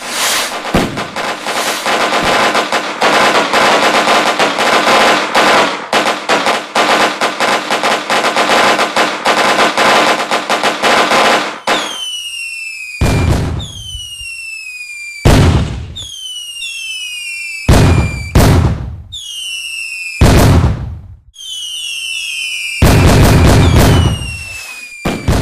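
Fireworks: a dense, rapid string of firecracker bangs for about twelve seconds, then a series of whistling fireworks, each a falling whistle ending in a loud bang, about seven in all.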